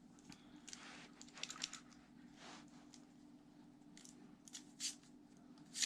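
Faint scattered metallic clicks and rustling from a Leatherman OHT multitool being handled, with a soft swish about two and a half seconds in and sharper clicks near the end.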